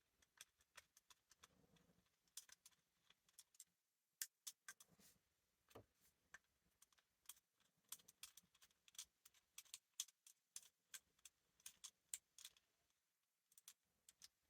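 Faint, irregular small metallic clicks and taps, some in quick clusters: a driver working the mounting screws out of the red dot on a pistol slide.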